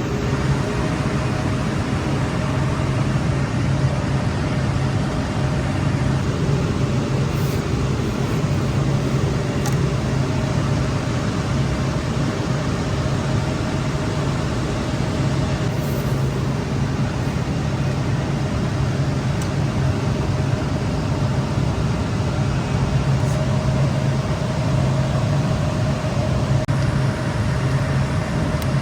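Steady whir and hum of equipment cooling fans, a constant rush of air with a low hum and a faint higher tone that never changes.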